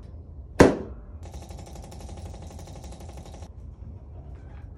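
A chiropractic drop table's section slams down once under an adjustment thrust, a single sharp loud clack. It is followed by about two seconds of a steady buzzing rattle that stops abruptly.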